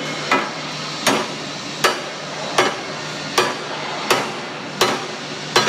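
Hammer blows on a welded steel stud, struck steadily about once every three-quarters of a second, eight strikes in all. The stud is being hammered over in a bend test of the stud weld.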